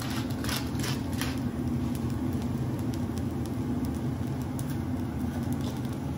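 Fried rice sizzling faintly on a hot teppanyaki griddle over a steady low mechanical hum, with a few short scratchy strokes in the first second and a half as seasoning goes on.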